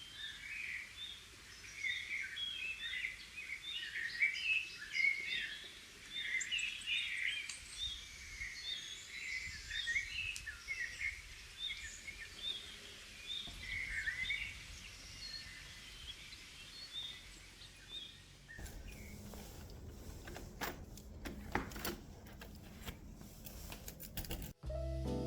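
Small birds chirping busily, many short overlapping calls. About eighteen seconds in, the chirping fades and gives way to crackling, rustling clicks.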